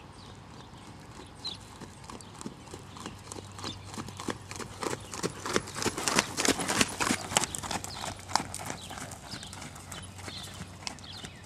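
Hoofbeats of a ridden horse moving at a canter on sand footing. They grow louder as the horse passes close by about six seconds in, then fade as it moves away.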